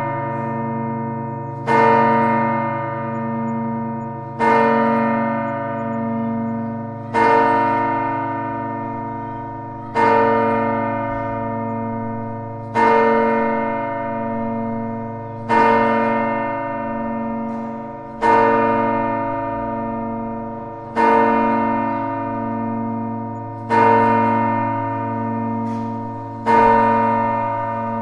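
A single church bell striking the hour of twelve, evenly spaced about every two and three-quarter seconds: ten strokes here. Each stroke rings on with a wavering hum and fades slowly, still sounding when the next comes.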